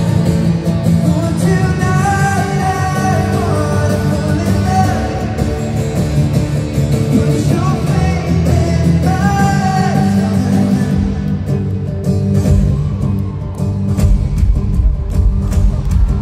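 Live concert music through a phone's microphone in an arena: a male singer's voice over guitar and heavy bass, with crowd noise. In the last few seconds the singing drops out and the bass and beat carry on.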